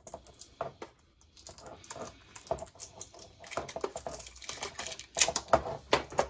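Fingernails picking and scratching at the sticker seal on the edge of a metal colored-pencil tin, making irregular light clicks and scrapes. A louder run of clicks comes near the end as the sticker is peeled away.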